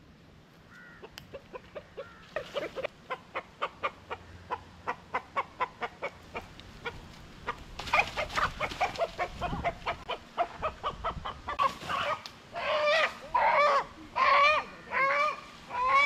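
A chicken clucking rapidly in alarm, about three clucks a second, then breaking into loud repeated squawks in the last few seconds as it runs from being caught.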